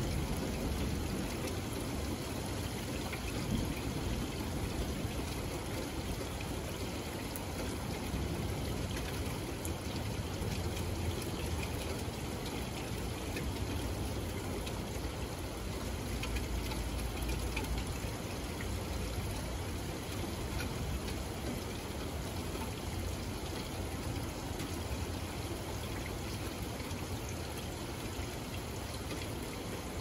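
Steady rain falling on a wet wooden deck and lawn, a continuous even hiss with scattered drop ticks, under a low, shifting rumble of wind.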